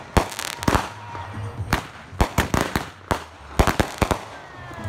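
Aerial fireworks going off in an irregular run of sharp bangs, several close together, with a faint falling whistle near the end.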